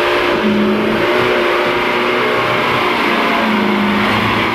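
Heavy diesel engines of a Kobelco excavator and a loaded truck running and revving, the truck pulling through deep mud; the engine note shifts a little in pitch.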